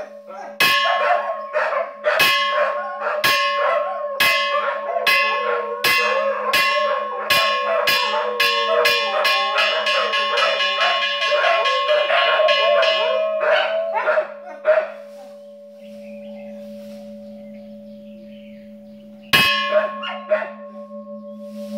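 Hanging bronze temple bell struck by hand, the strokes quickening from about one a second into a fast roll, then a few slower strokes and a long fading ring, with one more strike near the end. Dogs howl along with the bell through the quickening strokes.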